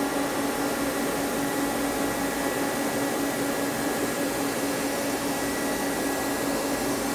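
Steady machine hum of a Mazak Quick Turn 10N CNC lathe idling after its threading cycle: an even noise with several steady tones and no cutting sounds.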